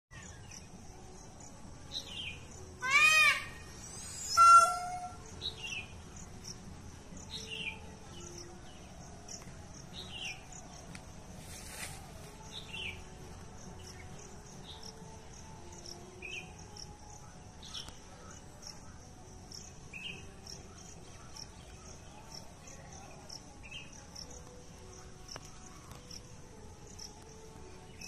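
Indian peafowl (peacock) giving two loud calls, about three and four and a half seconds in. They run over a steady high chorus of crickets, with another bird repeating a short falling chirp every second or so.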